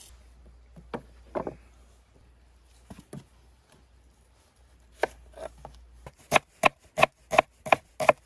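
Chef's knife chopping peeled onion on a wooden cutting board. A few scattered knocks come first, then from about five seconds in a steady run of sharp knife strikes on the board, about three a second.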